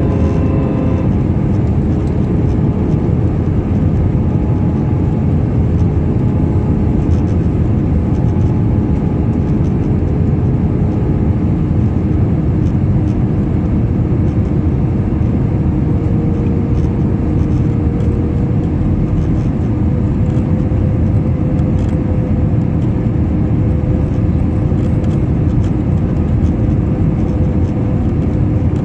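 Jet airliner cabin noise at a window seat over the wing: the steady rush of air and engine drone, with a humming engine tone that slowly rises in pitch through the middle.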